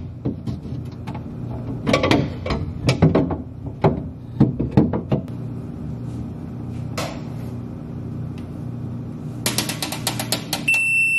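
Clear plastic refrigerator bins and shelves knocking and clattering as they are handled, over a steady low hum from a KitchenAid refrigerator standing with its door open. Near the end the refrigerator's door-open alarm gives one short high beep, a warning that the door has been left open.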